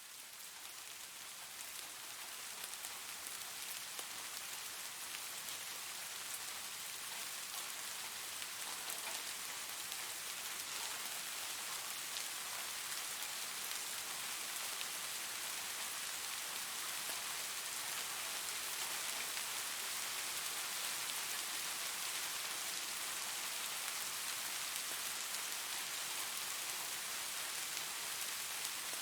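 Heavy rain falling steadily, a dense hiss with many individual drops ticking close by. It swells up over the first few seconds, then holds even, with no thunder.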